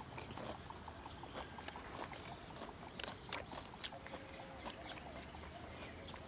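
Close eating sounds: chewing and crunching of crackers (kerupuk), heard as many small scattered clicks and crackles, with a faint steady tone in the second half.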